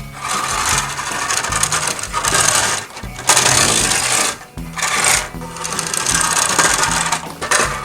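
Driven by Battat toy bulldozer's tracks rattling as it is rolled along a surface, in three long runs with short pauses between, over soft background music.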